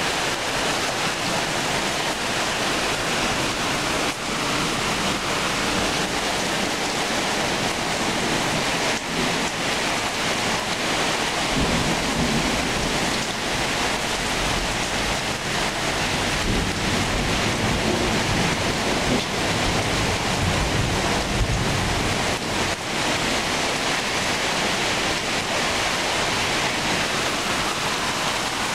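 Heavy rain pouring down steadily in a thunderstorm, with low rumbles of thunder around the middle.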